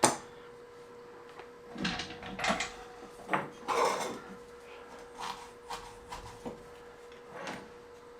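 A part being unclipped by hand: one sharp click, then a string of small knocks and scrapes as parts are handled, over a faint steady hum.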